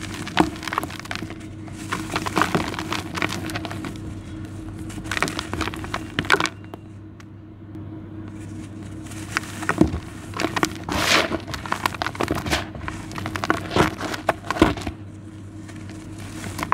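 Damp clumps of charcoal-and-sand mix crumbling and crunching between bare fingers, grit and small stones trickling back into a plastic tub. Irregular crackling crunches with hissing pours of loose sand, the longest pour about eleven seconds in.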